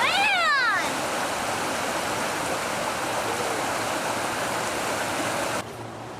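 Swollen floodwater in a creek rushing steadily. A short high-pitched call rises and falls in the first second. Near the end the rushing drops suddenly to a quieter hiss.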